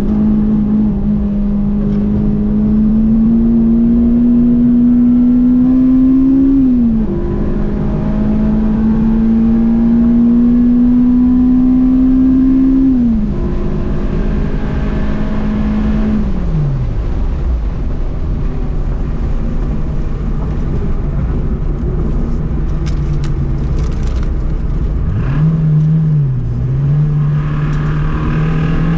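The 2002 Acura RSX Type-S's 2.0-litre four-cylinder engine running hard on track. Its pitch climbs slowly and drops sharply twice, about seven and thirteen seconds in, at gear changes. It falls away around sixteen seconds as the throttle comes off, runs at lower revs for a while, then picks up again near the end.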